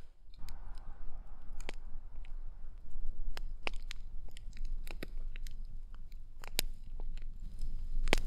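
Wood fire crackling: irregular sharp snaps and pops over a low rumble.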